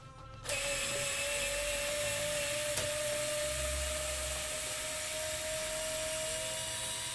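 TOPSHAK TS-ESD1 4V cordless screwdriver running under load, driving a Phillips screw with a PH2 bit into wood without a pilot hole. Its motor and gearbox give a steady whine that starts about half a second in and winds down at the end.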